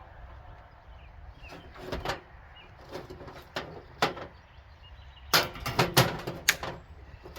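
Ratchet strap being handled and ratcheted to fasten a wooden swarm trap to a tree: scattered sharp clicks and knocks, then a quick run of louder clicks about five to six and a half seconds in.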